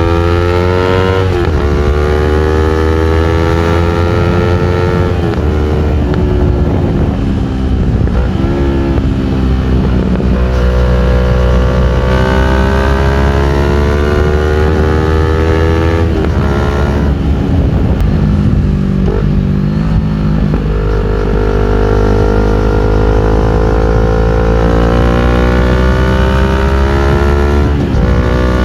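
CFMOTO NK400 motorcycle's parallel-twin engine through an Akrapovic full-system exhaust, accelerating on the road. Its pitch climbs through each gear and drops sharply at each upshift, several times.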